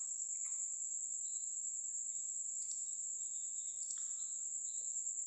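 A steady high-pitched whine, with a few faint clicks.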